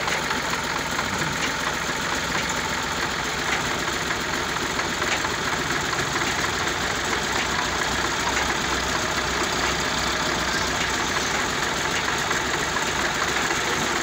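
Massey Ferguson 260 Turbo tractor's diesel engine running steadily close by, with a second tractor's diesel working gravel just ahead.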